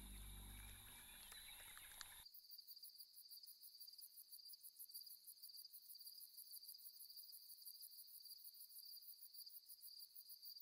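Faint night insects trilling: a steady, rapid high-pitched pulsing that starts about two seconds in, right after a low music bed cuts off.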